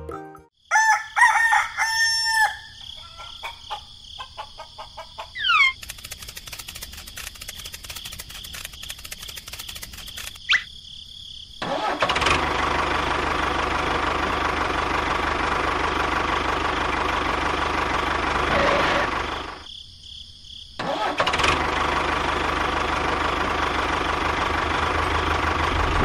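A rooster crows once near the start. After a quieter stretch of small clicks, a motor starts about twelve seconds in and runs steadily, dies away around twenty seconds, then starts again about a second later and keeps running.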